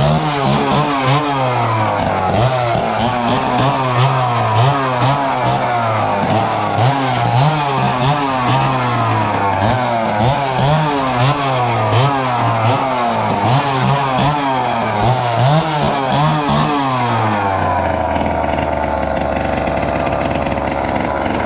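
Gas chainsaw being revved over and over, its pitch climbing and dropping back about once a second, then settling to a steady idle about 17 seconds in.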